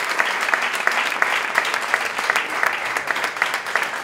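A roomful of people applauding, with many hands clapping without a break.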